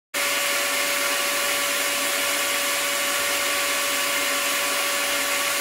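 Electric drill clamped to the bench as a buffing polisher, its motor running at steady speed with a constant whine over a strong hiss. It starts and cuts off abruptly.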